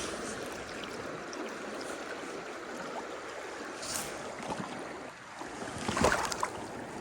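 River water flowing steadily, with a short, louder splash-like sound about six seconds in.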